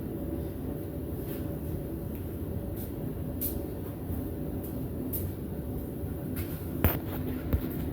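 Steady low mechanical rumble with a faint steady tone, and two sharp knocks near the end.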